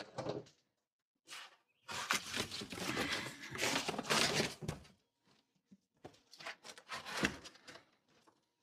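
Plastic side panel of a generator being handled: scraping and rattling with small clicks, in irregular bursts, the longest lasting about three seconds from about two seconds in.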